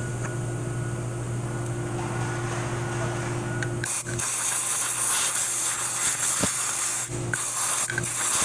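A steady low hum. About four seconds in, a loud hiss starts and comes in several bursts with brief breaks.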